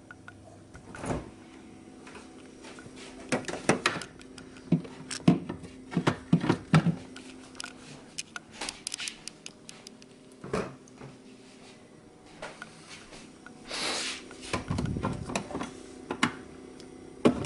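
Household handling sounds as food containers are put back into a refrigerator: a door opening and closing, and scattered knocks and clicks of bottles and jars being set onto the fridge door shelves.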